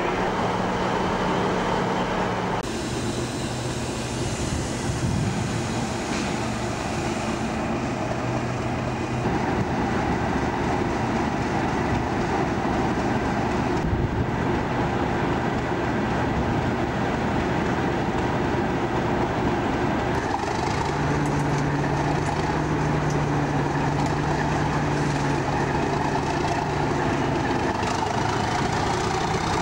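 Diesel trains running at a station, in several short scenes that change abruptly. Near the end a Class 37 locomotive's English Electric V12 diesel engine idles steadily.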